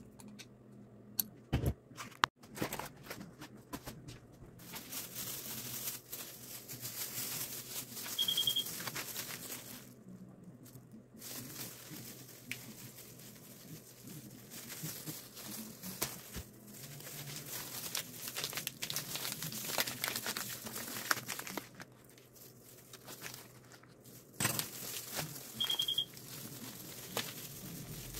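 Rustling and crinkling of packaging with light clicks and knocks while a white powder is measured into a glass measuring cup, with two short high beeps, one about 8 seconds in and one near the end.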